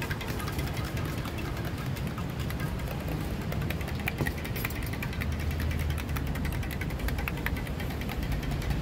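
Metal spoon stirring quickly in a stainless steel cup, a rapid run of light metallic clicks, over a steady low rumble of traffic.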